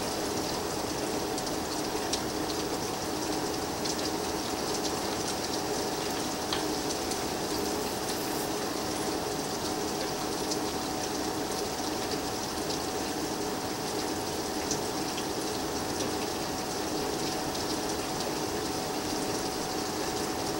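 Heavy storm rain pouring steadily, with a faint steady hum underneath.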